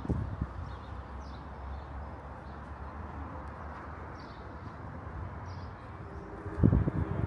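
Outdoor ambience: a steady background hum and hiss with faint, short high chirps recurring every second or so, and a few low thumps near the end.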